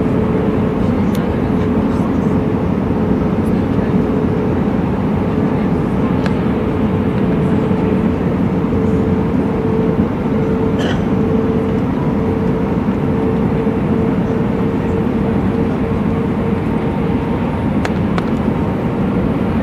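Airbus A319 airliner running, a constant roar of engines and rushing air with no rise or fall. A steady hum tone sits over it and stops near the end.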